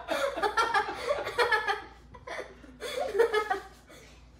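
A person laughing in two bouts, the second starting about three seconds in.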